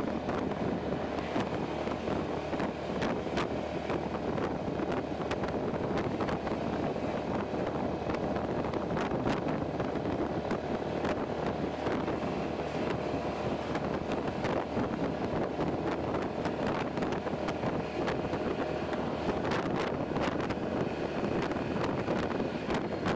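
Wind rushing over the microphone, with frequent short crackles, over the running of a Honda PCX scooter and its tyres on the road while it is ridden at steady speed.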